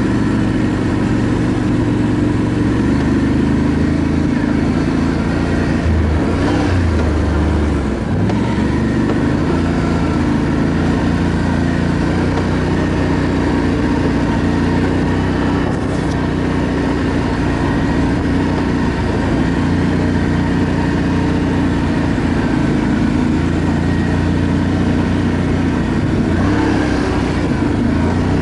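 ATV engine running at riding speed, its note shifting a few times as the throttle changes.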